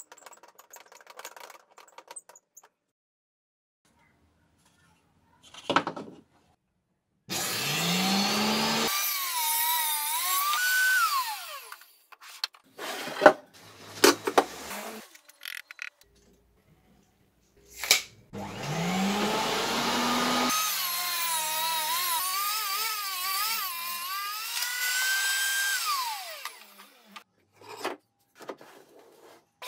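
Table saw with a circular blade making two cuts through wood panels. Each time the motor spins up, its whine wavers and sags as the blade cuts, then rises when the cut frees and falls away as it winds down. Short knocks of boards being handled fall between the cuts.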